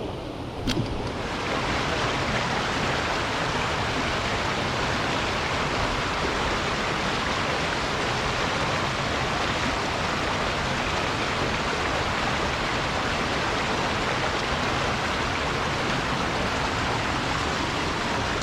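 Rushing water of a jungle stream or cascade, a steady even hiss that grows louder just after a short click about a second in.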